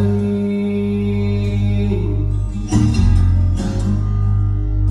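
Background music: an acoustic guitar song with a long held note in its first half and a fresh strum a little past halfway.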